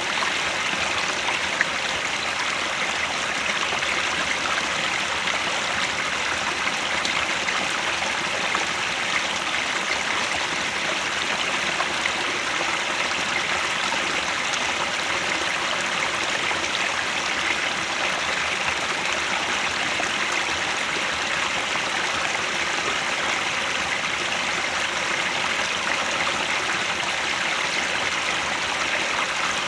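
Headwater stream flowing, a steady, even rush of running water.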